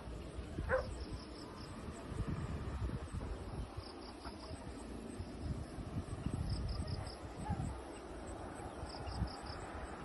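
Insects chirping in short groups of about four quick pulses, repeating every two to three seconds, over a low rumble on the microphone.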